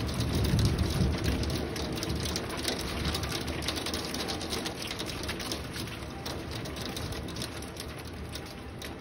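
Heavy storm rain beating on window glass and the deck outside: a steady rushing hiss full of fine patter. A low rumble swells in the first second or so and then slowly eases.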